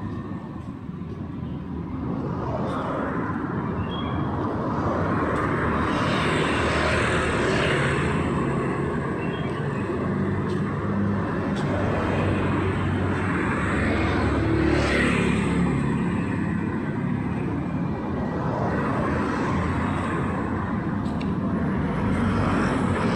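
Road traffic: a steady rumble of engines with vehicles passing one after another, each pass swelling and fading.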